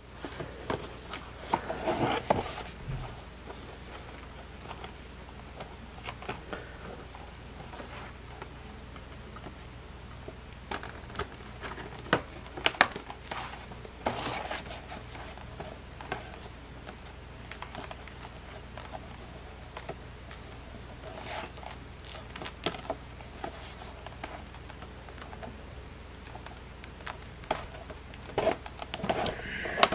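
Scissors snipping and cardboard packaging rustling, clicking and knocking as a toy box is cut open and handled, in scattered short sounds with a few sharper ticks, over a faint steady low hum.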